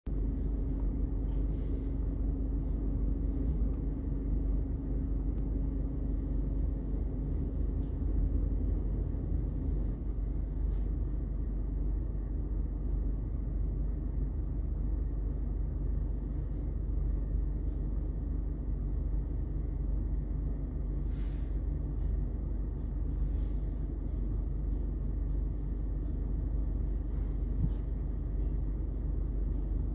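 Rear-loader garbage truck's engine running steadily, a low rumble, with a steady hum over it that stops about a third of the way through. A few brief sharp sounds come over the rumble, twice close together past the middle.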